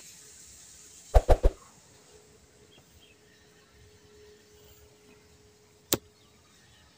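Desk noise from writing with a pen on a notebook: three quick soft knocks about a second in, then one sharp click near the end, over faint background noise.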